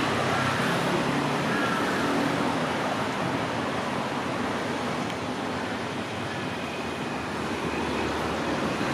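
Kiha 183 diesel multiple unit approaching slowly on the track, a steady running noise from the train.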